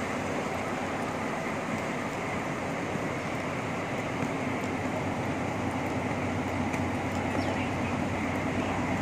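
1800-horsepower diesel locomotive hauling a train of loaded ballast wagons at a crawl toward the listener, its engine a steady low drone that grows slightly louder near the end.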